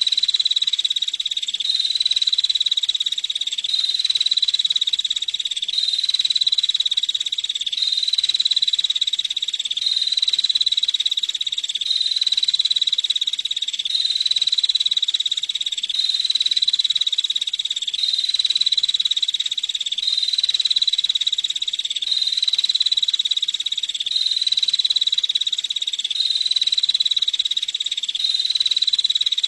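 Female prinia (prenjak) giving a continuous high, buzzy rattling trill that swells and repeats in a cycle of about two seconds.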